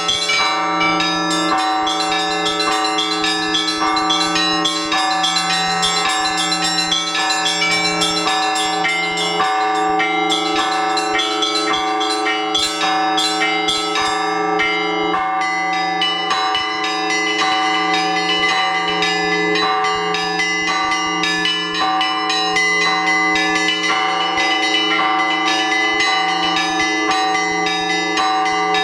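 Orthodox church bells rung together in a continuous peal calling to the all-night vigil: a lower bell sounds in a steady repeated beat beneath rapid, overlapping strikes of smaller, higher bells.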